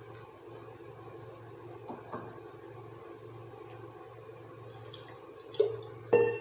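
Wire whisk beating wet wheat-flour dosa batter in a stainless steel pot, a soft wet stirring, with two sharp metal clinks near the end as the whisk strikes the pot; the second is the loudest and rings briefly.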